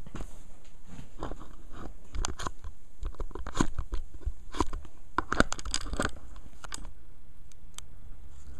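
Handling noise: irregular clicks, knocks and rustles of plastic toy motorcycles and the camera being moved about on a countertop, mostly between about one and seven seconds in.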